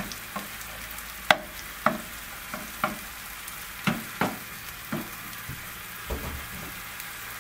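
Tomato sauce of onion and canned whole tomatoes sizzling in a frying pan, with a wooden spatula stirring it and knocking and scraping against the pan about ten times.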